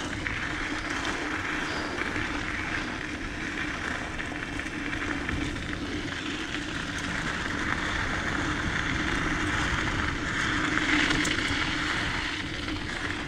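Diamondback Mission 2 mountain bike rolling fast downhill on a dirt trail: a steady rush of wind over the microphone mixed with tyre noise, over a constant low hum, swelling a little louder in the second half.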